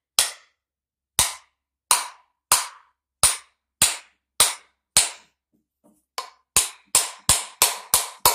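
Sharp wooden knocks of blows seating a new wooden handle into a small ball-peen hammer head, struck about every half second and then quicker, about three a second, from about six seconds in, until the head is down tight.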